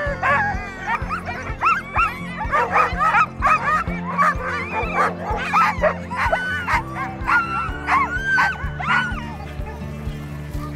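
A team of harnessed sled dogs barking and yelping, many voices overlapping in excited start-line clamour, over background music. The barking dies away near the end.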